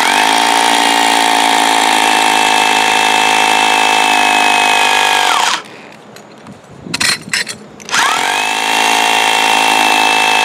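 Electric drill with a masonry bit boring into concrete, its motor whining steadily. It winds down about five and a half seconds in, a few knocks follow, and about two seconds later it spins back up and keeps drilling.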